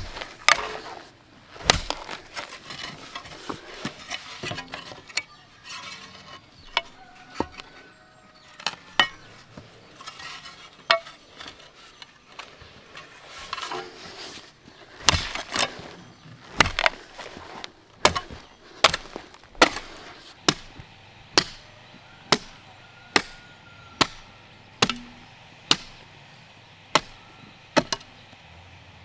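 Repeated sharp strikes of a hand tool on wood. They are uneven and scattered at first, then settle from about halfway into a steady rhythm of roughly one strike a second.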